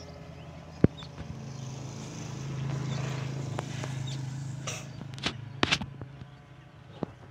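A motor's low hum swells for a few seconds and fades again. A few sharp clicks or knocks sound over it, the loudest about a second in.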